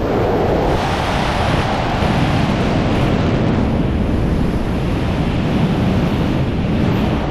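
Loud, steady wind noise across a wingsuit flyer's camera microphone during flight, heaviest in the low end.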